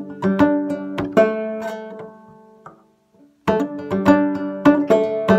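Minstrel banjo played clawhammer style in mountain minor: a quick run of plucked notes that rings out and dies away a couple of seconds in, a brief silence, then the playing starts again suddenly.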